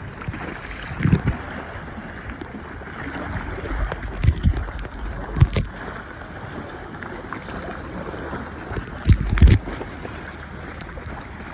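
Steady rush of water and wind around an inflatable kayak on open water, broken by a few dull low thumps at irregular intervals.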